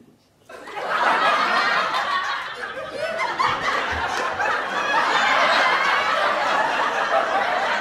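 A group of people laughing and chuckling, many voices at once, starting abruptly about half a second in.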